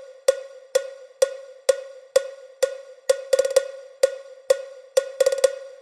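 Mid-frequency test sound of a speaker sound-check track: a cowbell-like pitched percussive hit repeating about twice a second, each ringing out briefly, with quick flurries of hits about three and five seconds in.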